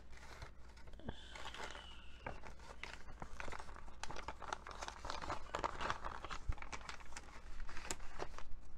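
Plastic packaging bag and paper chart crinkling and rustling in irregular crackles as a cross-stitch kit is pushed back into its bag.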